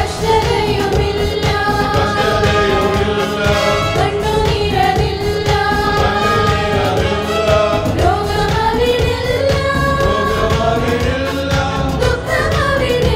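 Mixed choir of men's and women's voices singing a Malayalam Christian song together, accompanied by keyboard and guitar.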